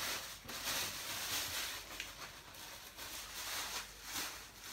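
A plastic bag rustling and crinkling as it is handled, in irregular bursts.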